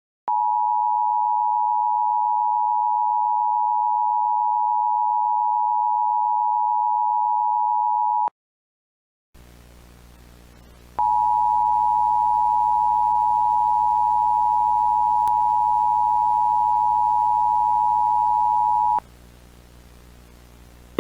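Emergency alert attention tone: a steady, high, unchanging beep held for about eight seconds, cut off sharply, then sounded again for another eight seconds after a short gap. A faint steady hum and hiss runs under the second tone.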